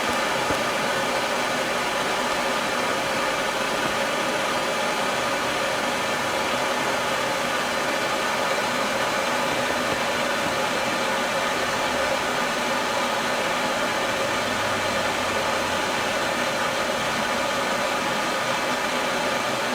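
A heating tool hisses steadily and evenly as it burns the alarm panel's data-bus wiring in a burn test.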